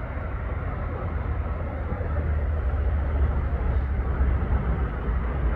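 Steady low rumble with an even hiss over it: outdoor background noise, with no clear single event.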